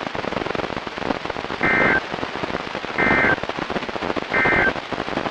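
Three short bursts of NOAA Weather Radio SAME digital data, each a brief two-tone screech about a second apart, over steady radio static. Their shortness fits the end-of-message (EOM) code that closes an alert broadcast.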